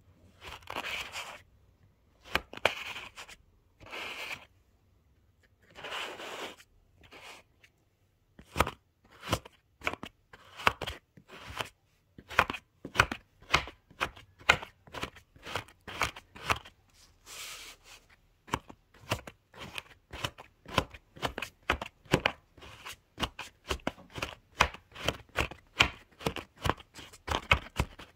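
Kinetic sand being cut with a flat plastic blade: a few longer scraping strokes through the sand first, then from about a third of the way in a quick run of short cutting strokes, two or three a second.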